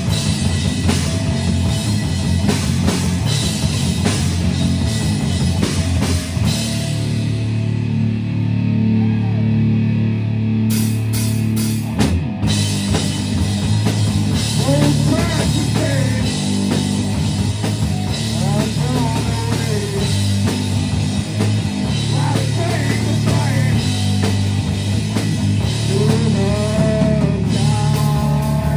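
Live heavy rock band playing loud: distorted electric guitars, bass guitar and a Tama drum kit. About six or seven seconds in the drums and cymbals drop out, leaving held guitar and bass notes, and the full band comes back in with a crash about twelve seconds in.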